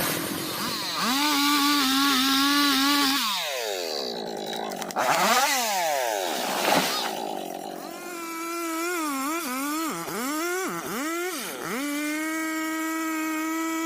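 Two-stroke chainsaw running at high revs, its pitch held steady for stretches and then dropping and climbing back several times as the throttle is let off and opened again.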